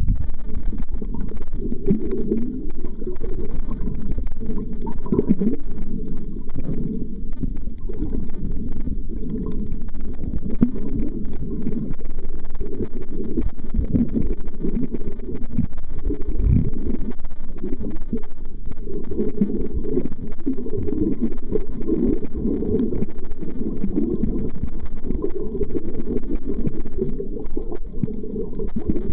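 Muffled water moving around a camera held underwater: an irregular low rumble that swells and falls throughout.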